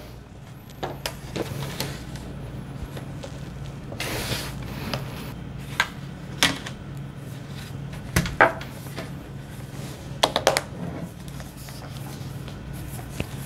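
Hard plastic snap-on shell case being fitted onto a MacBook Air: plastic scraping and rubbing against the laptop body, with scattered sharp clicks and knocks as the case is pressed into place.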